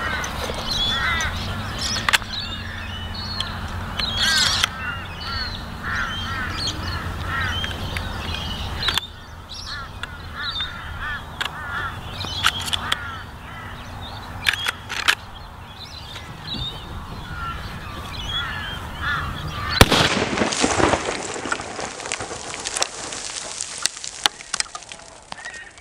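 Birds chirping and crows cawing in open country, with a few sharp clicks as the rifle is readied. About twenty seconds in comes a single, very loud .45-70 rifle shot, fired into a block of ice.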